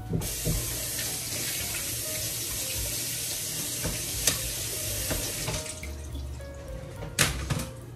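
Kitchen faucet running water into a sink, turned on sharply and shut off after about five and a half seconds. A couple of sharp knocks, one during the running water and a louder one near the end.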